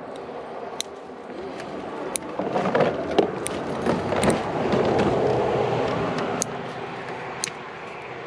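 A road vehicle passing by: a rushing noise that builds over a couple of seconds, peaks about five seconds in and fades away, with a few light clicks and knocks scattered through it.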